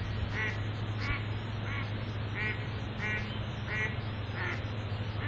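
An animal's short call repeated evenly, about seven times, roughly one every two-thirds of a second, over a steady low hum.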